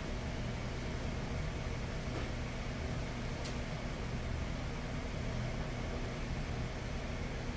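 Steady low mechanical hum with a hiss, unchanging throughout, and a faint click about three and a half seconds in.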